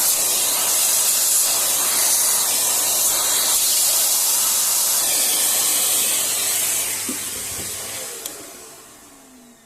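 A jet of compressed air hissing steadily as it blows dust out of a laptop's cooling fan and heatsink. It tapers off from about seven seconds in, leaving a faint falling whine.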